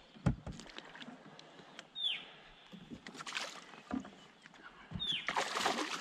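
Water sloshing and splashing beside a small boat as a salmon is worked into a landing net, with knocks of the net and gear against the hull and a burst of splashing near the end. A bird's short falling whistle sounds twice, a few seconds apart.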